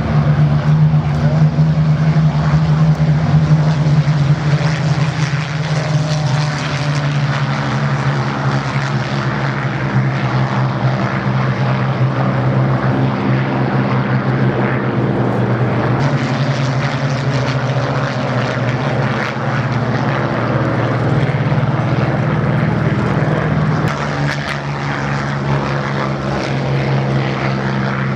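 Piston-engined Second World War fighters flying past in formation, their propeller engines giving a steady, loud drone that dips slightly now and then.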